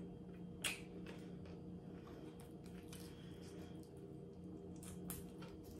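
Faint clicks and taps of rice being pressed onto a spoon by hand and food being handled, over a steady low hum.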